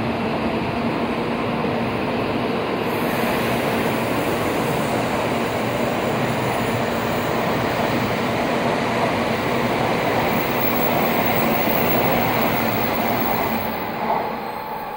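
Tokaido Shinkansen bullet train running through the station at speed without stopping: a steady, loud rush of wheel and air noise as the cars go by. The noise falls away near the end as the last car passes.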